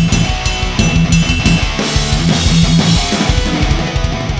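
Rock outro music with a fast, steady drum beat, bass and guitar, and a cymbal wash swelling about halfway through.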